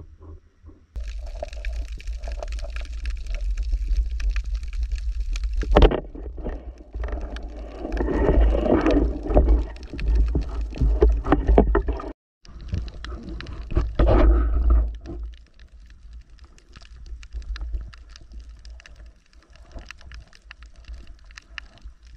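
Water sloshing and gurgling against a waterproof camera as a spearfisher swims and dives, over a steady low rumble. The sound breaks off suddenly about halfway, comes back loud briefly, then settles to a quieter underwater hiss with faint scattered clicks.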